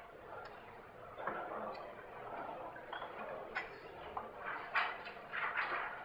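Faint, indistinct voices, too far from the microphone to make out, with a few sharp clicks in the middle.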